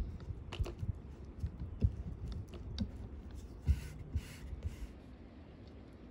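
Wooden rolling pin rolling out a thin sheet of dough on a wooden board: soft low thuds and small knocks as the pin rolls and is pressed down, with three short swishes of hands sliding over the dough a little past the middle. It goes quieter near the end.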